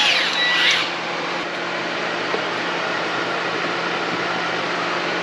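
A cordless grease gun's electric motor whines down in the first second, runs briefly again, and stops. A steady fan-like background hum then carries on.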